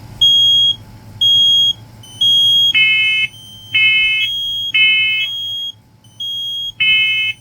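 First Alert SMI100-AC smoke alarm sounding its alarm: high, piercing half-second beeps about once a second. About three seconds in, a second interconnected smoke alarm with a different, lower tone joins in, its beeps alternating with the first.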